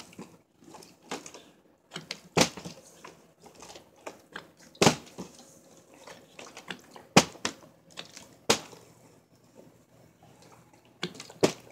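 Partly filled plastic water bottles being flipped and landing on a hard surface: about six sharp knocks spread out, with fainter handling clatter and water sloshing between them.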